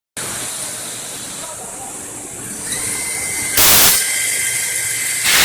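Automatic CNC channel letter bending machine running: a steady hiss with a thin high whine that starts about halfway, broken by two short loud bursts of hiss, one about three and a half seconds in and one at the very end.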